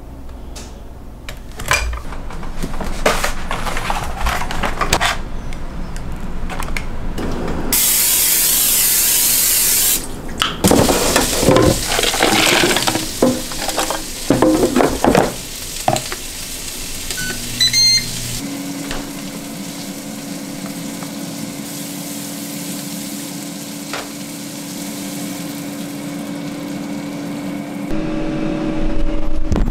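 Kitchen sounds of breakfast being made: dishes and utensils clattering, a loud hiss lasting about two seconds, and a few short electronic beeps about halfway through. After the beeps a kitchen appliance runs with a steady hum until near the end.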